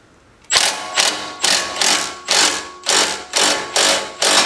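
Ratchet wrench clicking through a steady series of strokes, about ten at two to three a second from half a second in, turning down the forcing bolt of a ball joint separator to press an outer tie rod end out of the steering knuckle.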